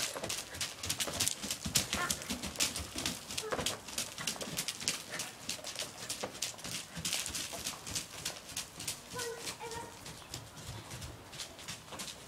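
A horse's hoofbeats on a wood-chip arena floor: a quick run of thuds and scuffs that is loudest in the first few seconds as the horse passes close, then fades as it moves away.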